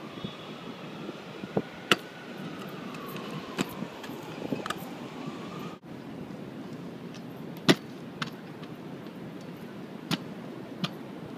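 Stunt scooter on concrete: sharp clacks and knocks as the deck and wheels land from tricks such as tailwhips, about eight in all and spread out, the loudest about two seconds in and again near the middle. Under them runs a steady city background hum, with a faint whine that rises then falls in the first half.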